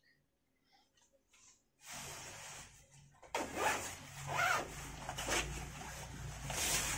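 Nylon puffer jacket being zipped up and adjusted: fabric rustling and several zipper strokes, starting about two seconds in.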